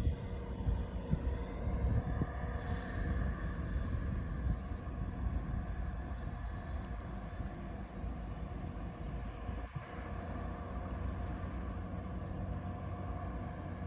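A steady motor drone with a low rumble, and faint high chirping over it.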